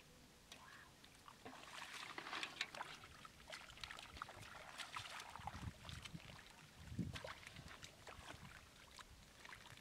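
Hands splashing and sloshing through shallow muddy water, groping in the mud for catfish. The small wet splashes come irregularly, with a couple of heavier sloshes about halfway through.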